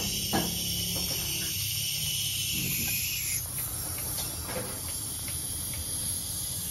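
Refrigerant hissing from a car A/C line fitting that is being tightened with a wrench, the fitting not yet tight enough. The hiss is steady, narrows about three and a half seconds in, and has a low steady hum beneath it.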